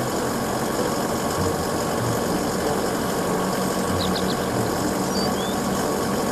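Wheeled excavator's diesel engine running steadily while the machine digs and swings its bucket: an even engine hum with a constant wash of noise.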